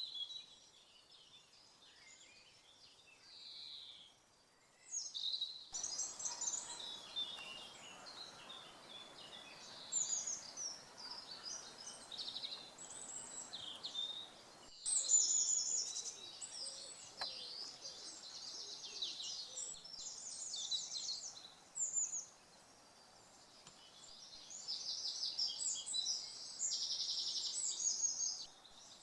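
Woodland birdsong from several songbirds calling and singing over one another in short high phrases, with a soft background hiss. The chorus is sparse at first, thickens about six seconds in, and has dense rapid trills near the end.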